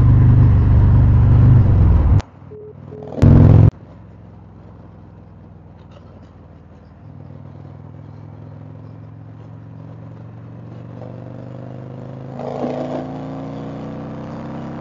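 2020 Indian Chieftain Dark Horse's Thunder Stroke 116 V-twin running under way, its pitch climbing steadily as the bike accelerates, with a brief surge about twelve and a half seconds in. In the first few seconds a much louder rushing noise cuts in and out twice, drowning out the engine.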